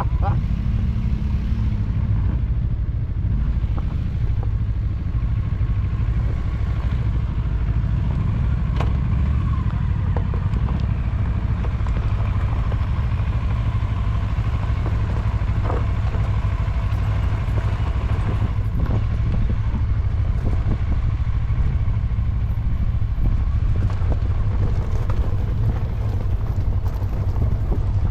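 Motorcycle engine running steadily while riding over rough off-road ground, with a few sharp knocks and clatters from the terrain.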